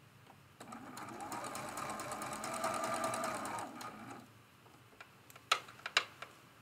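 Sewing machine stitching a seam, starting about half a second in, running steadily for about three and a half seconds, then stopping. Two sharp clicks follow near the end.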